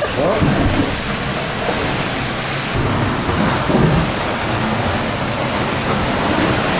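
Strong wind and rough sea around a sailing catamaran: a steady rushing noise with uneven low rumbling.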